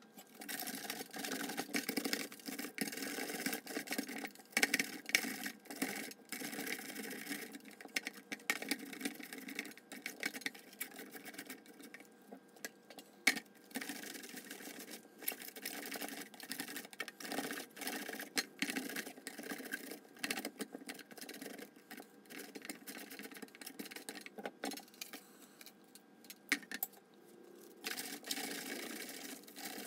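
Cabbage being sliced on a plastic V-blade mandoline: a quick, irregular run of scraping strokes as the cabbage is pushed back and forth across the blade, with a couple of short pauses.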